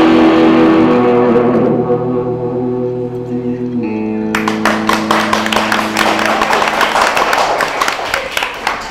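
Amplified Stratocaster-style electric guitar ringing out a final chord that slowly fades. About four seconds in, a lower chord is struck and left to sustain. Half a second later a dense run of sharp, irregular clicks and crackles starts over it and runs to the end.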